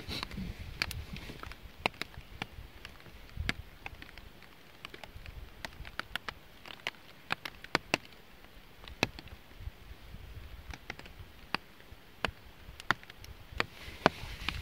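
Small fire of split kindling stacked in a teepee, crackling with irregular sharp pops, a few a second, as the sticks catch. Now and then a low rumble runs beneath.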